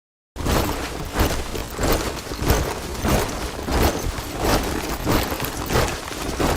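A body of soldiers marching in step, their boots striking the ground together about twice a second. The sound starts abruptly just after a moment of silence.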